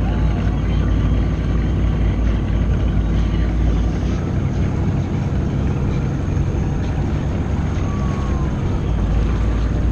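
Yamaha personal watercraft engine running steadily at low speed, a constant drone with a slight easing of the deepest part midway.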